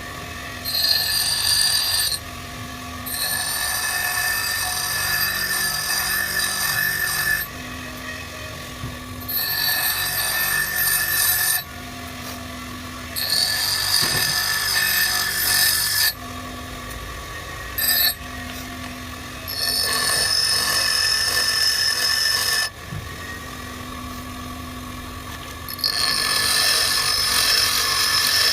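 Motor-driven grinder running, with a carbide lathe tool bit pressed against the wheel in repeated spells of a few seconds. Each spell gives a loud, high grinding hiss, and between the spells there is a steadier, quieter motor hum.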